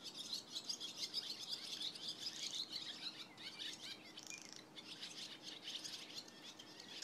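Barn swallows twittering: a continuous chatter of quick, high chirps and warbles with only brief pauses.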